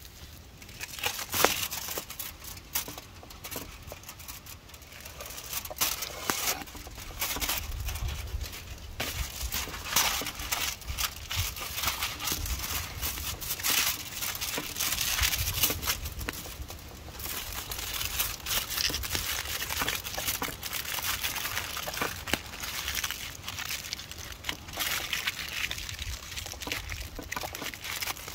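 Aluminium foil being handled, folded and crumpled by hand into a wrapped bundle, a steady run of crinkles and small crackles.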